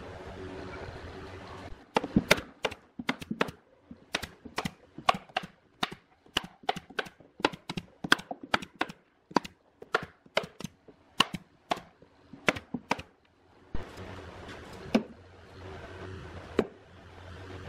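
Pneumatic staple gun firing again and again, fastening fibre lining inside a subwoofer cabinet: a long run of sharp shots, two or three a second, that stops about thirteen seconds in.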